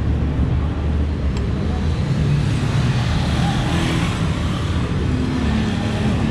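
Steady street traffic noise from passing vehicles, including motorbikes.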